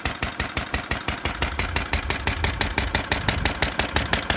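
International Harvester LA/LB single-cylinder stationary engine running steadily, its exhaust beating evenly about seven times a second. A deeper low rumble builds under it about a second in.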